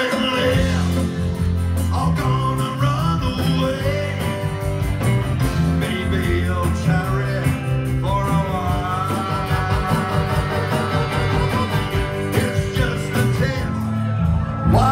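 Live rock band playing a song: a singer over electric guitars, bass and drums, with a steady beat, heard from the audience in a club.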